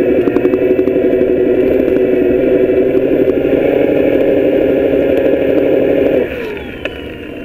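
Bafang BBS02 mid-drive e-bike motor whining steadily as it drives the drivetrain, with a fast knocking running through it that is typical of a fault in the rear freewheel hub. About six seconds in the motor cuts out and winds down with a falling whine, followed by a single click.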